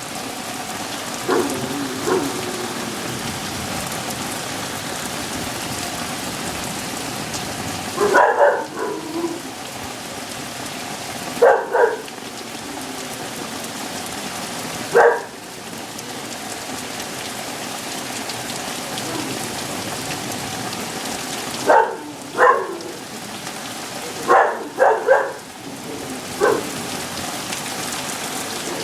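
Steady rain pouring down, with dogs barking in short bursts: about a dozen barks scattered through, several in quick pairs.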